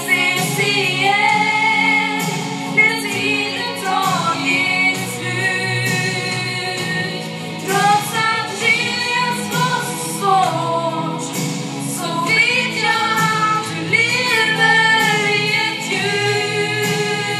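A woman sings through a microphone and PA over a musical accompaniment.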